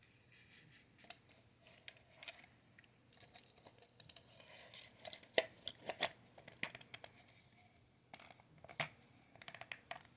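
Hands fitting a toy car and its parts back into plastic packaging: scattered light plastic clicks and taps with short rustling scrapes, busiest in the middle.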